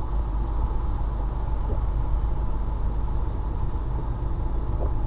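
Steady low rumble of a truck's engine and tyres on wet asphalt, heard inside the cab while driving.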